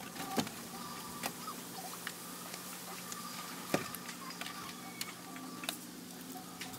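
Scattered small clicks and ticks, a few sharper ones standing out, over a steady low hum.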